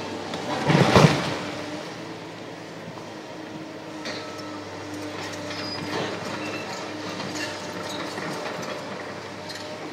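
A section of concrete canopy crashes down about a second in. Then a tracked excavator's diesel engine runs steadily under scattered clanks and a few short high squeals as its demolition shears work the concrete.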